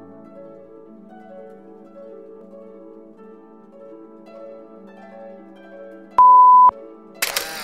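Soft plucked-string intro music, harp-like, playing a simple melody. About six seconds in, a loud electronic beep sounds for about half a second, and just before the end a noisy crackling burst starts.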